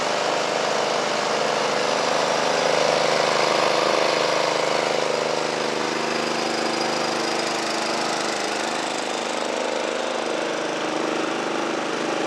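The Kawasaki FC150V 5.5 hp single-cylinder OHV engine of a 1996 John Deere 14SE walk-behind mower running steadily, slightly louder a few seconds in.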